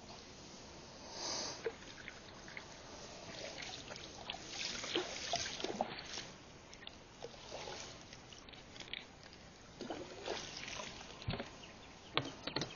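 Water lapping and sloshing against the side of a small boat, with scattered small knocks and handling noises on the hull.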